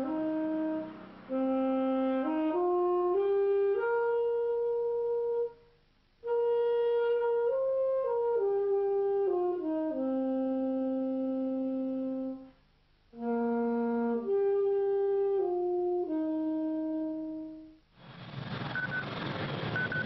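Saxophone playing a slow melody in long held notes, in phrases with short breaks between them. Near the end it stops and gives way to a hiss with two short electronic beeps.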